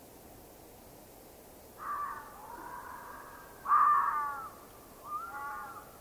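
Fox calling: three barking calls with falling pitch. The first starts about two seconds in and is drawn out, the second is the loudest, and a shorter third comes near the end.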